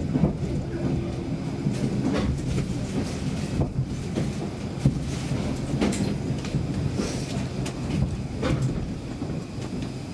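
A Stockholm Metro C6 subway car running through a tunnel, heard from inside the car: a steady rumble of wheels on rails, with a sharp clack every second or two.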